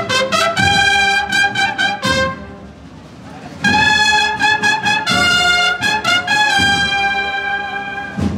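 A cornet-and-drum procession band (banda de cornetas y tambores) playing a march: loud held cornet notes over a steady drum beat. The brass breaks off about two seconds in and comes back in a second and a half later.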